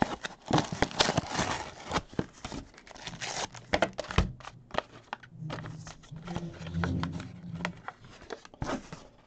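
Trading cards and plastic card sleeves being handled and shuffled: irregular rustling, crinkling and light clicks, with a low hum for a couple of seconds past the middle.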